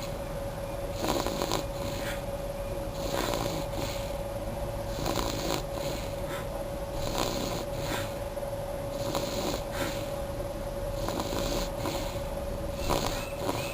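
Baby snoring, a breathy snore about every two seconds, over a steady hum.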